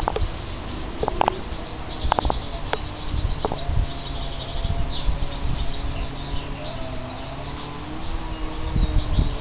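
Young red siskin × red factor canary mules twittering with many short, high chirps and quick trills, over a steady low hum.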